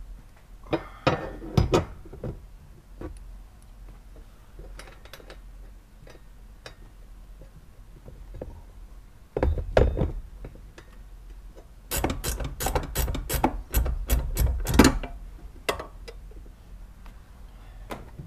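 Hand tools fitting and tightening the mounting nut of a dead pedal in a vehicle footwell: scattered metal clicks and knocks, then a dense run of quick clicks about twelve seconds in.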